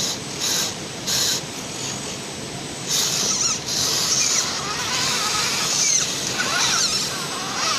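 Small electric motors and gearboxes of scale RC off-road trucks whining in short throttle bursts, then running more steadily with a whine that rises and falls in pitch over the last few seconds.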